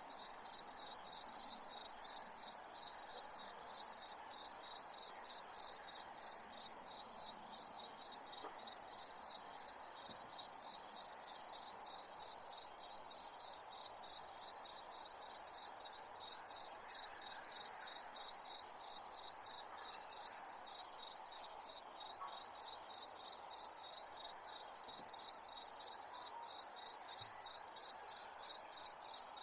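Crickets chirping steadily: a high, even trill pulsing about three times a second, over a faint background hiss.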